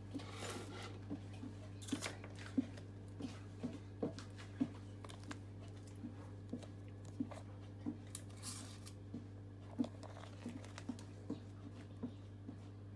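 Spoon scraping and clicking against a glass mixing bowl while scooping thick cake batter, with light clicks about twice a second and a few louder scrapes, over a steady low hum.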